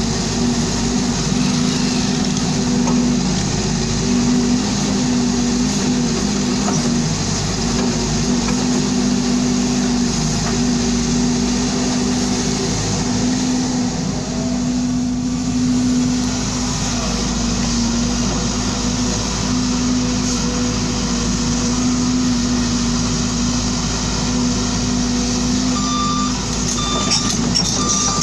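Volvo EC210D crawler excavator's diesel engine running steadily with a constant low hum while the boom and bucket work. Near the end a few short high beeps sound.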